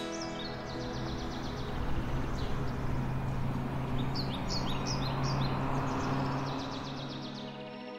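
Road traffic noise with a steady low engine hum, and birds chirping and trilling over it.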